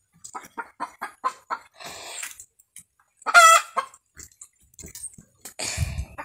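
Chicken clucking: a quick run of short clucks, about five a second, then a single louder squawk a little past three seconds. A brief rustle and thump near the end.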